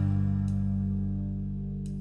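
Guitar-led rock music played back over Elfton Vegas II four-way hi-fi loudspeakers. A low sustained chord, struck just before, slowly dies away, with two short sharp high hits over it.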